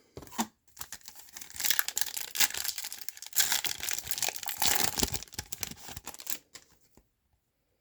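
A foil trading-card pack wrapper being torn open and crinkled, a dense crackling that stops about six and a half seconds in.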